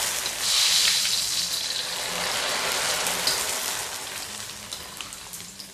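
Dry rice vermicelli (bihun) deep-frying in very hot oil in a steel wok: a loud, dense sizzle and crackle as the noodles puff up. It swells about half a second in, then fades gradually as the frying settles.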